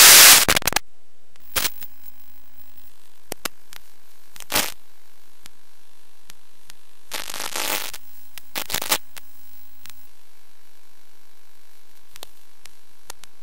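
Static from an FPV quad's analog video link, as recorded by the goggles: a loud burst of white-noise static at the start, then a steady hiss with several short crackling bursts of interference, the longest about a second long a little past halfway.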